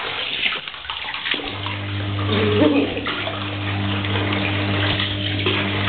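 Bath water splashing and sloshing in a bathtub as a puppy is washed by hand. A steady low hum starts about a second and a half in and holds to the end.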